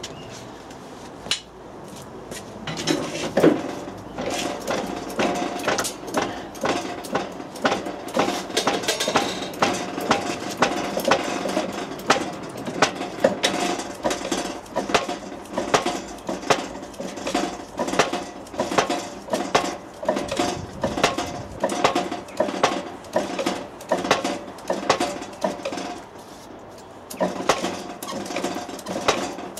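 Clarke Strong-Arm hydraulic shop press being pumped by hand in a steady run of short, rhythmic mechanical strokes, a little faster than once a second, with a brief lull near the end. The press is pushing a tapered roller bearing down onto a tractor half shaft.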